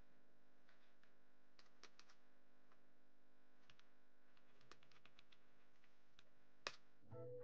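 Faint, scattered computer keyboard keystrokes and clicks, with one sharper click near the end. Music comes in just at the very end.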